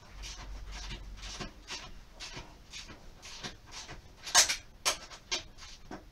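Hand tools clicking and knocking, a run of light taps about two to three a second, with two louder clanks about four and a half and five seconds in.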